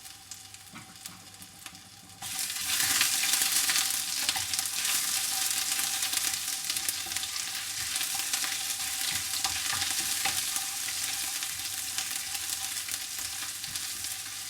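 Ginger-garlic paste going into hot sunflower oil in a pan: a faint sizzle jumps suddenly to a loud, steady sizzle about two seconds in, with light clicks of stirring.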